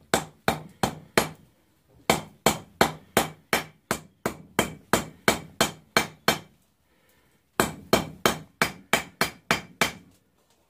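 Blacksmith's hand hammer striking a hot mild-steel bar on an anvil, rounding the drawn-out tail of a forged handle: three runs of steady blows, about two and a half a second, broken by two short pauses.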